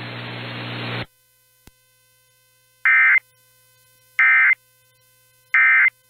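A second of radio hiss, then three short buzzy data bursts about 1.4 s apart: the NOAA Weather Radio EAS/SAME end-of-message (NNNN) tones that close the AMBER Alert broadcast.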